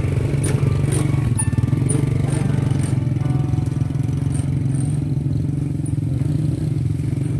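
Small motorcycle engine running steadily at a low, even pitch.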